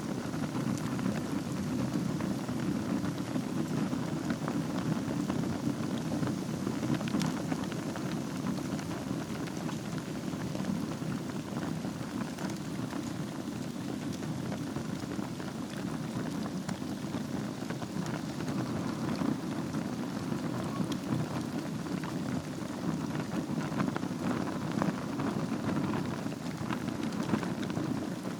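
Wood fire burning over glowing embers in a fireplace, crackling steadily with many small pops over a low rush of flame.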